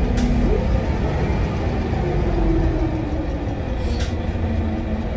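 Bus running along, heard from inside the saloon: a steady low engine and road rumble with a whine that rises a little in the middle, and two sharp rattles, one near the start and one about four seconds in.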